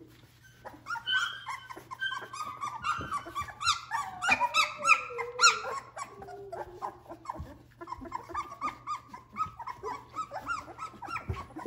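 A litter of three-week-old Australian Labradoodle puppies squealing and whimpering. Many short, high cries overlap, starting about a second in and busiest in the middle.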